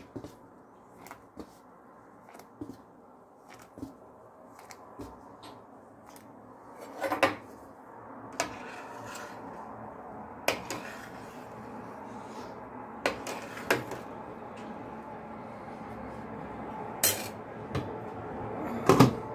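A spoon knocking and scraping against a pot while stirring khinkali dumplings in boiling water, in scattered clicks and a few louder clanks, over a steady hiss of boiling water that grows about seven seconds in.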